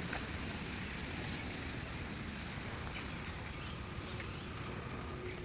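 Steady outdoor ambience: a continuous high-pitched insect drone over a low, even rumble of wind or distant traffic.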